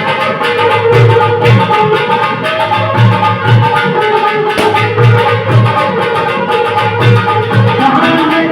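Instrumental music with a steady drum beat and sustained melodic instrument lines, no singing.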